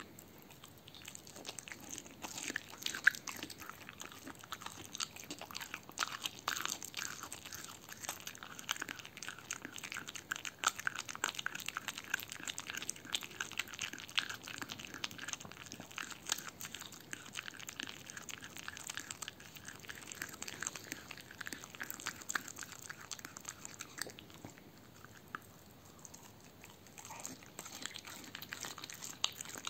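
A dog chewing and biting into a raw veal heart: a dense run of quick bites and mouth clicks, easing off briefly a few seconds before the end and then starting again.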